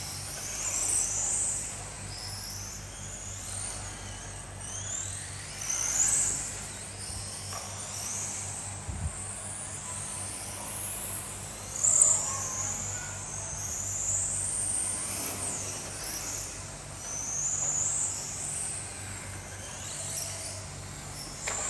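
Radio-controlled racing motorcycles' electric motors whining as the bikes lap the track, the pitch rising and falling again and again as they accelerate and slow through the corners. A steady low hum runs underneath, with a short knock about halfway through.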